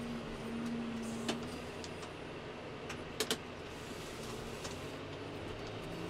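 John Deere tractor engine running steadily while its front loader works muck. Sharp knocks about a second in and twice in quick succession a little past the middle.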